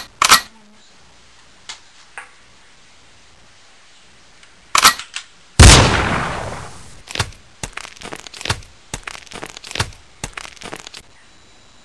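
Mock gunfire: a few sharp cracks, then one loud blast that dies away over about a second and a half, followed by a quick, ragged run of shots.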